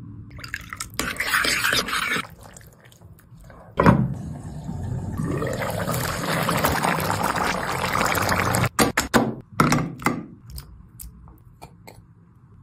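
Cooking sounds: a spoon working a yogurt-and-spice marinade in a bowl, a thunk about four seconds in, then mutton curry sizzling and bubbling in a steel pan for several seconds. It ends in a quick run of sharp taps.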